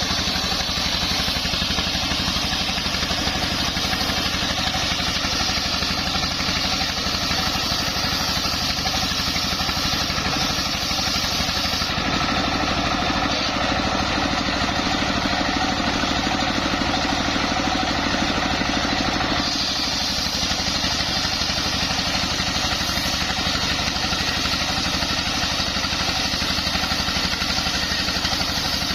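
Home-built engine-driven circular saw machine running steadily. Its higher, hissing part eases off for several seconds in the middle and then comes back.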